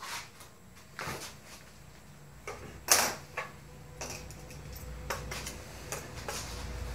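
Objects being handled on a wooden workbench: a cardboard box set down and a small metal load center picked up, giving several short knocks and clunks, the loudest about three seconds in. A low hum grows under them in the second half.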